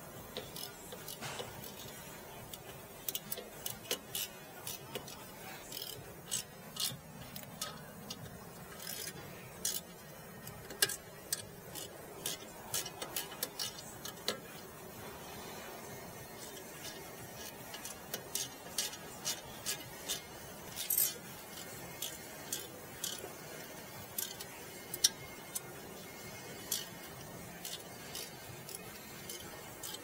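Hands handling the front brake hardware of a BMW 5 Series F10: irregular light metallic clicks and clinks, one sharper about 25 seconds in, over a faint steady hiss.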